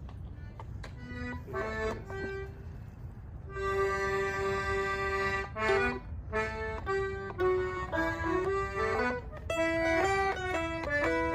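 Accordion and mandolin playing a tune together. A few scattered plucked notes come first, then about three and a half seconds in a long held accordion chord, followed by a quick-moving melody.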